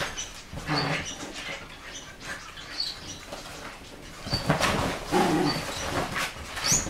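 Dogs moving about and sniffing, with short low vocal sounds coming in irregular bursts, the loudest about a second in and again past the middle.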